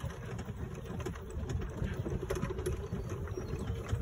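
A golf cart riding across grass: a low, uneven rumble of the moving cart.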